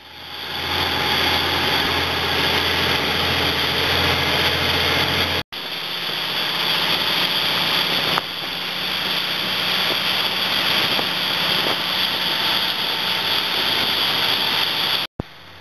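A fishing boat's engine runs steadily under way, a low hum under a loud, even rushing noise. The sound drops out for an instant about five seconds in and again near the end.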